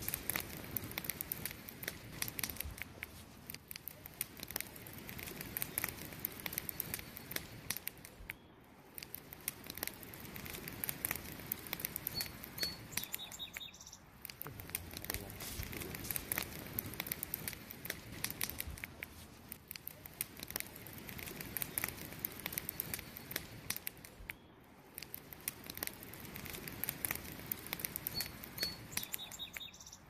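Wood campfire burning, with dense crackling and popping over a soft rush of flame. A bird chirps briefly twice, about halfway through and near the end.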